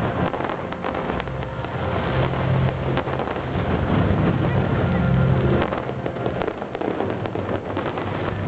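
Fireworks going off in a dense, continuous stream of crackling and popping bursts.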